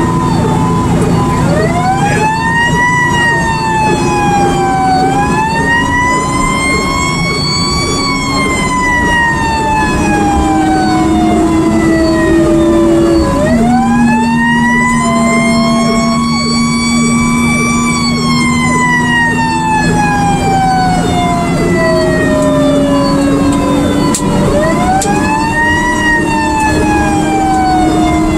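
Fire engine siren, heard from inside the cab, rising quickly in pitch and then falling slowly, over and over in an uneven rhythm: about four rises, with long falls between. Under it the truck's engine drones steadily and drops in pitch about halfway through.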